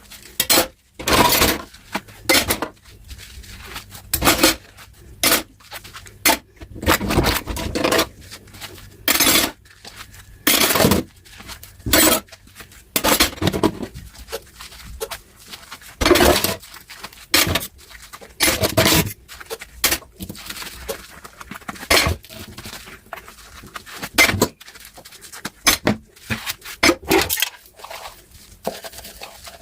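Dishes and cutlery being washed by hand: irregular clinks and clatter of crockery and utensils knocking together, one after another throughout.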